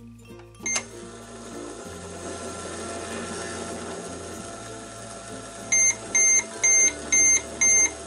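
Just Like Home toy microwave: a beep as its start button is pressed, then its pretend-cooking hum running for about five seconds. Near the end it gives five short beeps, about two a second, and starts a longer beep, signalling the end of the cooking cycle.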